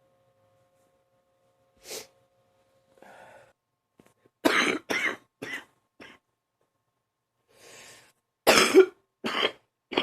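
A person's deep cough in two fits: four quick coughs getting weaker, a breath drawn in, then three more loud coughs near the end.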